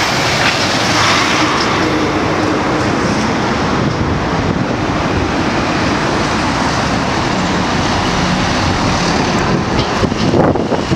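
Steady road traffic: cars and trucks, among them a box truck and a tractor-trailer, driving past close by on a city street.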